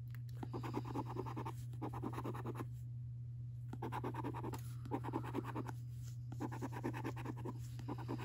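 A coin scratching the coating off a scratchcard's panels, in several spells of quick strokes with short pauses between.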